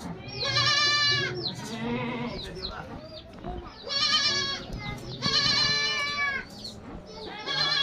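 Goats bleating, about four long wavering bleats with quiet gaps between them.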